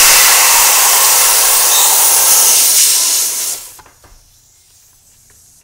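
Loud hiss of air rushing out through a scooter tire's open valve stem with the valve core removed, just after the air chuck comes off. It holds steady, then fades and stops a little over three seconds in.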